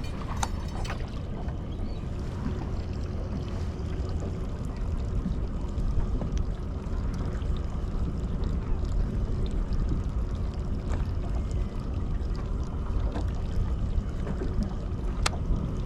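Steady low rumbling wind-and-water noise aboard a small fishing boat, with a few sharp clicks or knocks, one near the start and one near the end.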